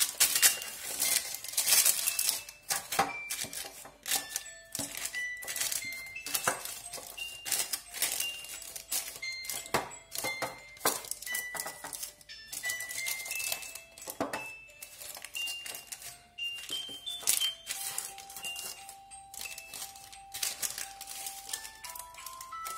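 Baking paper crinkling and rustling in irregular crackles as it is pressed into a metal loaf tin, over soft background music, a slow melody of single clear notes.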